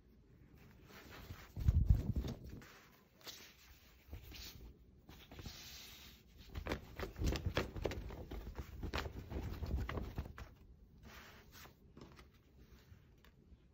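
Irregular knocking and rustling of things being handled, with a heavier thump about two seconds in and a busier run of knocks in the second half.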